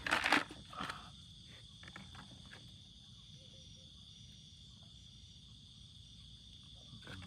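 Steady high-pitched trilling of crickets and other night insects, with a low rumble underneath. A short, sharp noise at the very start is the loudest moment.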